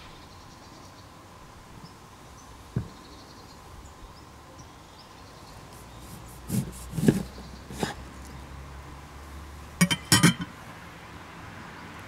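Scattered knocks and a quick run of metallic clinks about ten seconds in, cookware and utensils being handled, over a steady low outdoor background.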